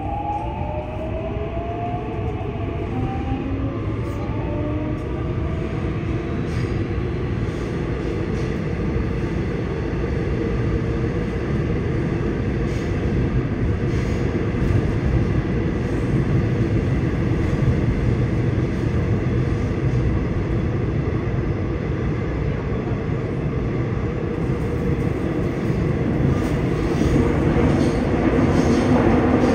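Seoul Metro Line 6 train with Mitsubishi IGBT-VVVF traction equipment, heard from inside the car. In the first few seconds the inverter and traction motors give several rising whine tones as it accelerates. Then comes steady wheel and running noise that grows louder as speed builds.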